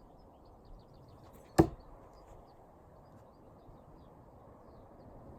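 A thrown knife striking and sticking in a wooden target: one sharp thunk about one and a half seconds in.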